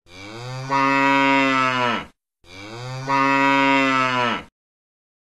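A cow mooing twice. Each moo lasts about two seconds, starts softer, swells louder partway through on a steady pitch, and drops away at the end.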